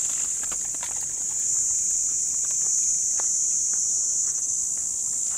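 Steady, high-pitched chirring of insects, unbroken throughout, with a few faint ticks early on and once about three seconds in.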